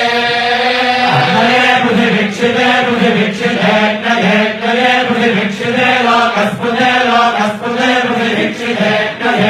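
Vedic chanting: a continuous Sanskrit recitation, the voice moving up and down between a few close pitches without a break.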